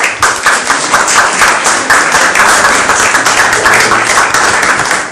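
Audience applauding: many people clapping at once, loud and dense.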